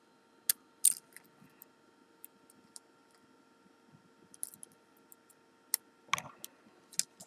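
Scattered small metallic clicks and ticks of pinning tweezers and tiny pins against a lock housing and plug follower, irregular and light, as a spool driver pin is worked into its chamber.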